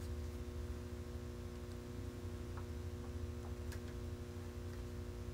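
A steady electrical hum over a low rumble, with a few faint clicks.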